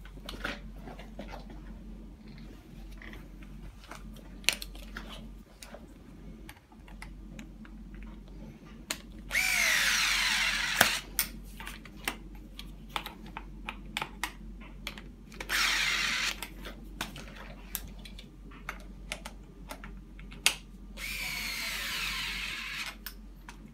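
Cordless drill/driver run in three short bursts of one to two seconds, tightening the screws and nuts that hold a stroller's handle bar. Small metallic clicks of parts being handled between the runs.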